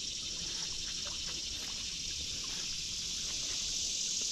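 Steady high-pitched chorus of insects, with a few faint ticks.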